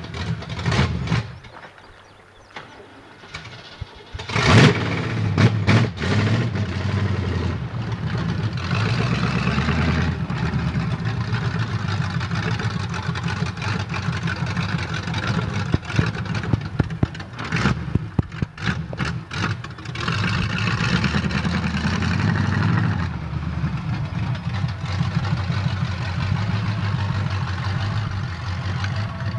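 Lifted 1976 Chevy pickup's engine cutting out briefly, then starting again with a loud burst about four seconds in. It then runs and revs unevenly as the truck drives off across the field.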